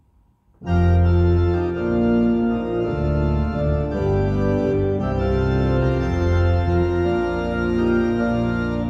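Organ playing a hymn introduction in long, held chords that come in suddenly under a second in.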